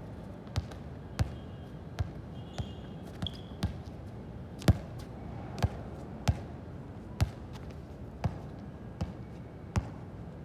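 A series of short, sharp thuds at uneven spacing, roughly one or two a second, over a steady background hiss.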